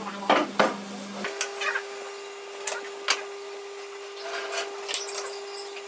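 Scattered light knocks and clicks of wooden pieces being handled and set down, over a steady hum whose pitch steps up about a second in.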